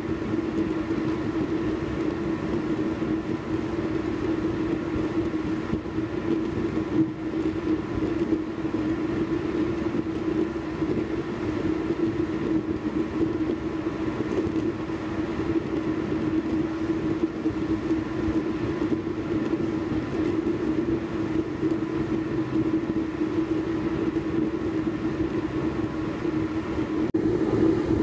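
Small waste-oil stove made from a fire extinguisher burning under forced air from a blower pipe: a steady rushing roar with a strong, even drone. It grows a little louder near the end.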